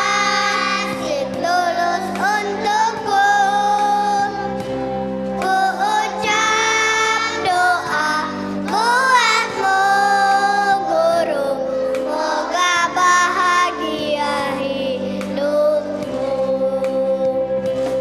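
A choir of kindergarten children singing together in long held and gliding notes, over a steady instrumental accompaniment.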